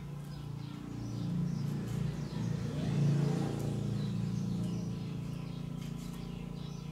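A passing vehicle's engine, growing louder from about a second in to a peak around three seconds, then slowly fading away.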